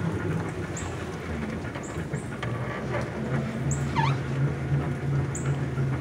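Electric Jeep kit car with a HyPer9 motor rolling slowly over a dirt yard: a low, steady motor hum over tyre rumble. Short high chirps come through about once a second, with a falling whistle about four seconds in.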